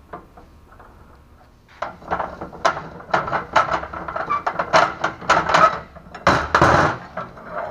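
Steel parts of a go-kart frame's steering column and linkage being worked loose by hand: a quick run of metal clanks and knocks from about two seconds in, with a longer metal scrape near the end.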